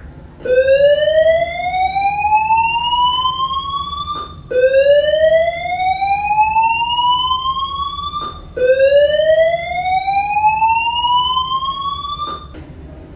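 Fire alarm voice-evacuation system sounding its slow-whoop evacuation tone: three long rising tones, each about four seconds, one after another. The tone signals that the building is to be evacuated.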